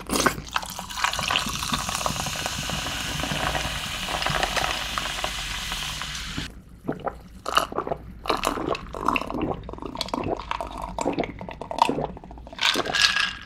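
A drink poured from a can into a glass full of ice, a steady hiss for about six seconds. Then it is gulped down, with short irregular swallowing sounds and clicks of ice against the glass.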